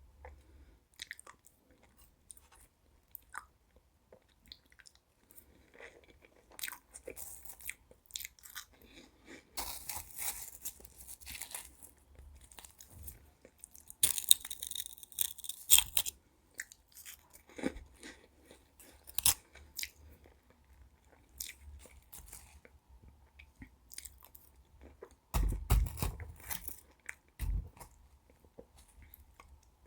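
Close-up eating sounds: biting and chewing crunchy meringue from a Pavlova cake, with scattered crackles and several louder crunchy stretches. A few low thumps come near the end.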